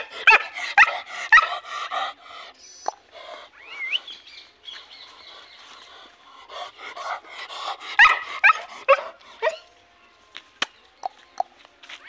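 Pointer dog barking: a quick run of short, sharp barks at the start and another run about seven to nine seconds in.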